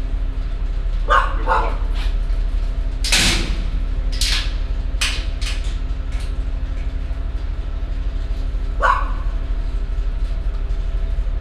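A dog barking in short, sharp bursts, several times, over a steady low hum.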